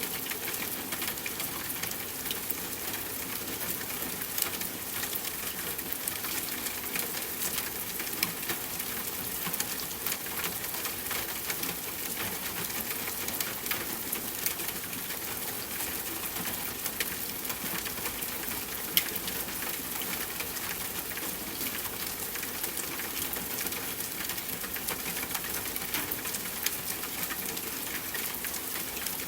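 Steady soft rainfall: an even patter of many small raindrops hitting a surface, with scattered louder individual drop ticks.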